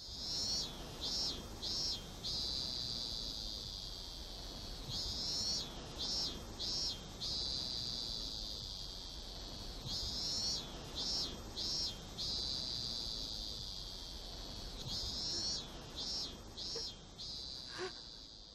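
High-pitched, insect-like chirping in a regular cycle: three short chirps and then a long trill, the cycle repeating about every five seconds over a faint low hum.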